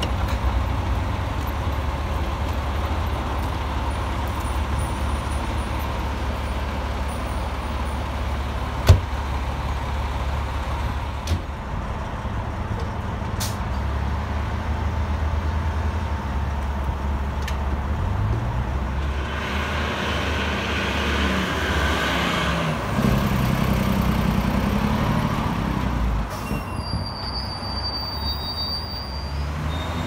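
Heavy rescue fire truck's diesel engine idling steadily, with a sharp knock about nine seconds in; in the second half the engine revs up as the truck pulls away and accelerates.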